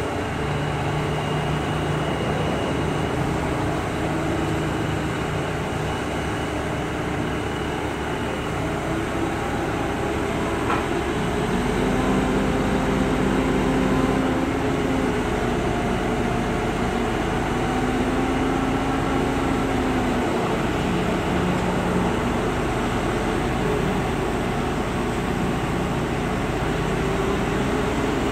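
Mobile crane engine running steadily while hoisting a load, its engine note shifting up and getting a little louder about twelve seconds in.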